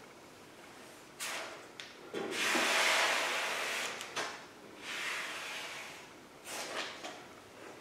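Plastic spreader scraping thin body filler across bare sheet steel in about four strokes, the longest and loudest running from about two to four seconds in.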